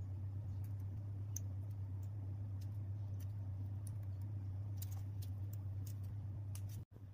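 Faint, scattered small clicks from a plastic candy cream tube being squeezed and handled over a wafer cone, more frequent in the second half, over a steady low hum. The sound drops out abruptly just before the end.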